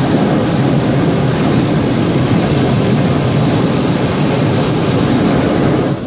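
Hot-air balloon's propane burner firing: a loud, steady roar that cuts off abruptly near the end.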